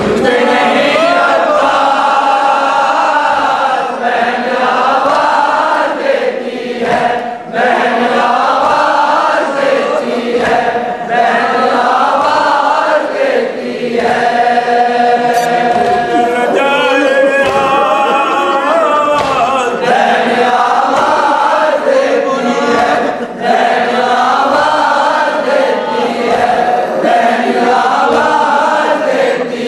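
Men's voices chanting a nauha, a Shia Muharram lament, in long held melodic phrases, a lead reciter with group voices joining in.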